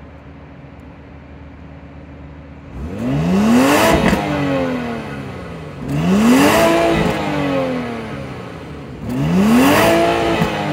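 BMW X5 50e's 3-litre twin-scroll turbo inline-six idling, then revved three times, about three seconds apart. Each rev rises quickly in pitch and falls back toward idle.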